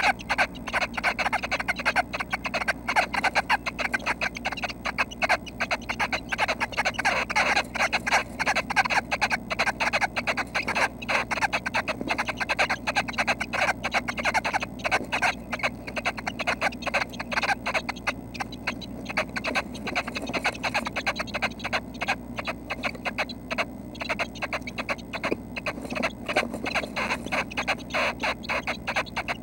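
Feathered red-breasted nuthatch nestlings in the nest cavity, close to the microphone, keeping up a continuous rapid chatter of short calls.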